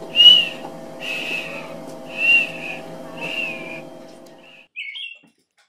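American robin song: four clear whistled phrases, about one a second, over a steady low hum that cuts off near the end, followed by two short chirps.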